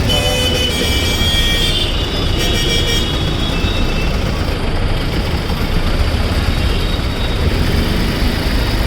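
Steady road traffic rumble, with a vehicle horn honking during the first few seconds.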